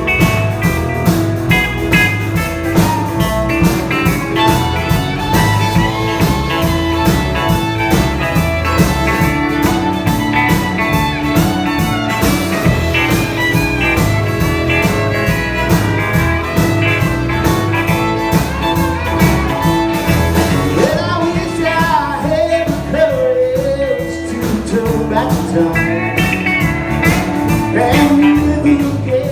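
Live band playing blues-rock music with guitar over a steady drum beat.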